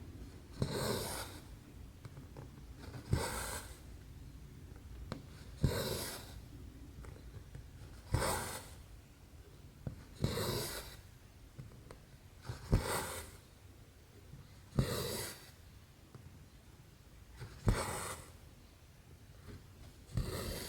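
Cross-stitch needle and thread worked through 11-count stitching fabric, stitch after stitch: each a sharp tick of the needle followed by a short rasping pull of the thread, about every two and a half seconds, nine times.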